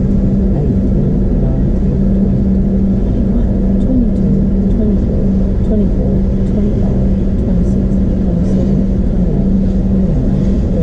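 Long freight train of hopper cars rolling steadily through a level crossing: a continuous heavy rumble of wheels on the rails with a steady low hum under it, heard from inside a stopped car.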